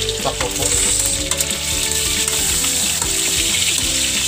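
Pork pieces sizzling steadily in a wok as they render in their own fat, with a few light knocks as the meat is turned in the first second or so. Background music with a melody plays underneath.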